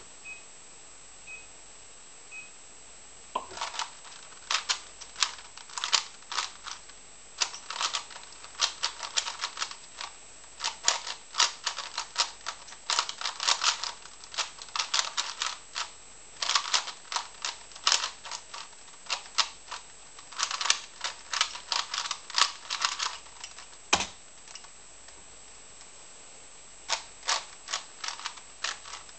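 A 3x3 Rubik's cube being turned fast during a speedsolve: a dense, irregular run of sharp plastic clicks and clacks from the layers snapping around. It is preceded by three short high beeps. After about twenty seconds of turning, one sharp thump stands out, and a few more turning clicks follow near the end.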